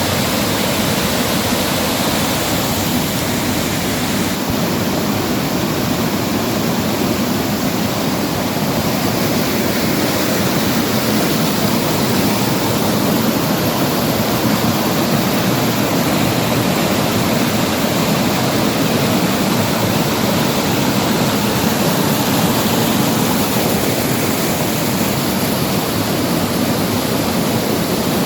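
Water rushing over a small waterfall, a loud, steady, unbroken noise.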